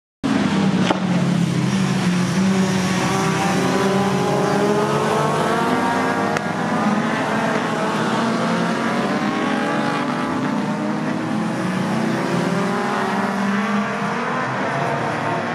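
A pack of touring race cars running through a corner together, many engine notes overlapping and rising and falling against each other.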